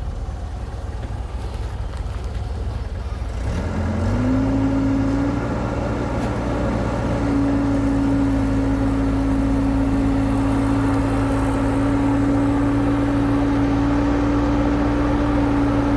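Excavator's diesel engine running, speeding up about four seconds in and then holding steady at higher revs with a steady drone.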